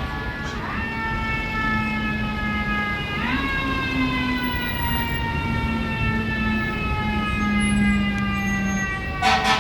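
Fire engine siren winding up quickly twice, once about half a second in and again about three seconds in, each time sliding slowly down in pitch. Near the end the truck's air horns start blasting in quick pulses, about three a second.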